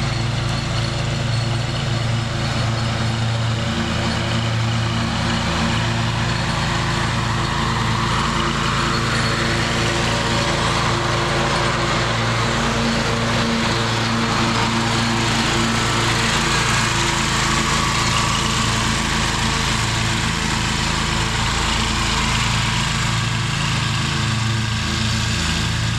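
Scag zero-turn riding mower running with its blades engaged, mowing: a steady engine hum under the rush of the cutting deck. It grows louder as the mower comes close around the middle and eases off as it moves away near the end.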